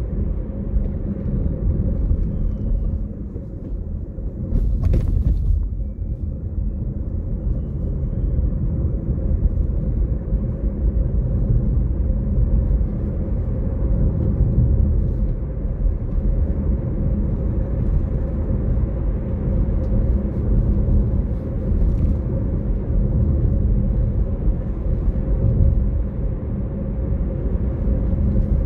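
Steady low rumble of a car driving along a road, engine and tyre noise heard from inside the cabin, with one brief click about five seconds in.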